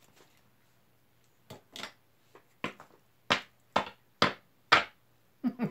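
About seven sharp taps on a tabletop, the last four evenly spaced about half a second apart.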